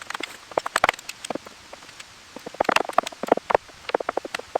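A rapid, irregular series of light knocks and clicks, several a second, thinning out briefly about a second and a half in before picking up again.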